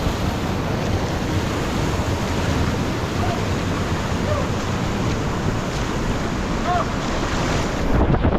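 Steady roar of rushing whitewater from a waterfall, with a few faint short whistle-like notes in the middle.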